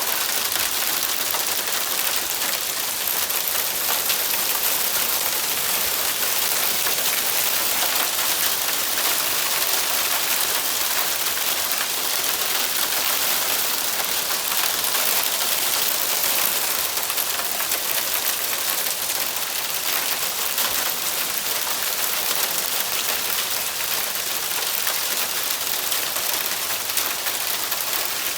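Hail storm: small hailstones and rain pelting down hard on outdoor surfaces, a steady, dense hiss that keeps up without let-up.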